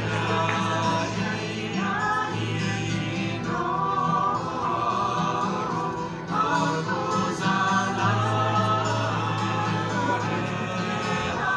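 Music with singing voices over a held low note.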